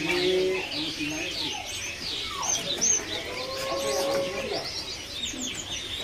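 Many caged songbirds chirping and whistling over one another in quick, overlapping calls, with a lower drawn-out note about halfway through.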